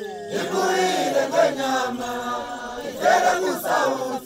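Group of Ngoni impi warriors chanting a war-dance song together, many voices on held, shifting notes.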